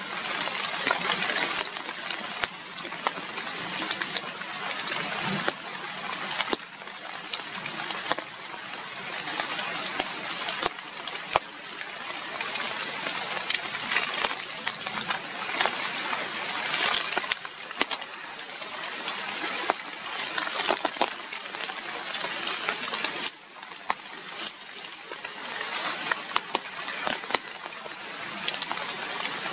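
Steady rain falling on leaves, with many small drop ticks scattered through it.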